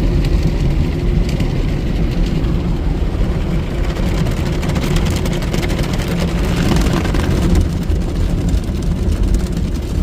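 Ryko SoftGloss MAXX automatic car wash working over the car, heard from inside the cabin: a steady low rumble of the machine with a spray hiss that swells from about four seconds in and falls back near eight seconds.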